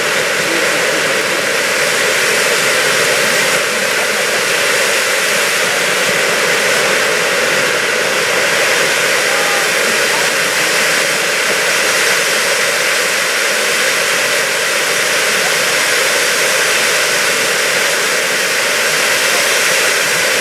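Four category-4 firework ground fountains spraying sparks with a loud, steady hissing rush that holds without a break.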